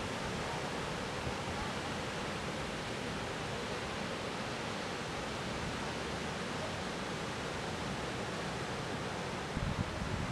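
Steady, even wash of breaking surf. Near the end, wind buffets the microphone in low gusts.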